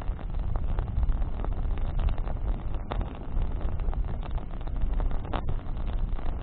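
Wood fire crackling with scattered sharp pops, two louder ones about three and five and a half seconds in, over a low rumble of wind on the microphone.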